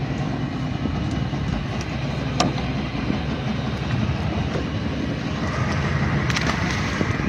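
Small fishing boat's motor running with a steady low rumble, with a few faint clicks.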